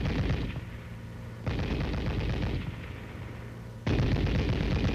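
M73 7.62 mm tank machine gun firing short bursts of automatic fire: a burst ends about half a second in, a second lasts about a second in the middle, and a third starts near the end.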